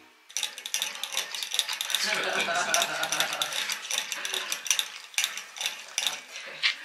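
Welsh Corgi drinking from a hanging water bottle: a rapid, irregular run of clicks and rattles as its tongue works the ball valve in the bottle's metal spout. The clicking stops just before the end.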